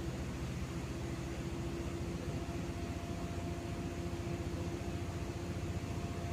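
Cosmos 56-inch industrial ceiling fan running: a steady hum with a fast low pulsing and a faint higher tone that comes in about two seconds in.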